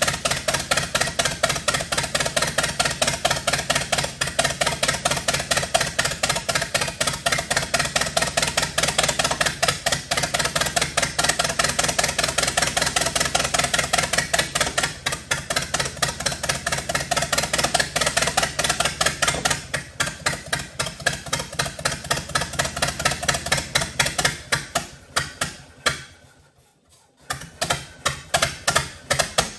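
1922 Fordson tractor's four-cylinder engine running in fast, even firing pulses. The engine has been revived after some 80 years of sitting and is smoking heavily. Near the end the firing slows and stops, catches for a few more beats, then dies.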